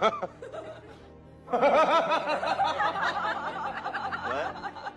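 Giggling laughter, a fast run of ha-ha pulses starting about a second and a half in, over background music.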